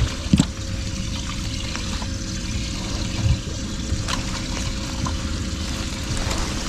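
Water trickling and pouring steadily, with a couple of light knocks about half a second and about four seconds in.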